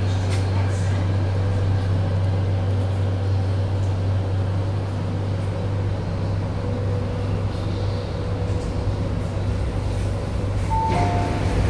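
Cabin noise of an MTR Kwun Tong Line C-Train under way: a steady low hum from the traction motors over wheel-on-rail rumble. Near the end, a two-note electronic tone starts sounding repeatedly.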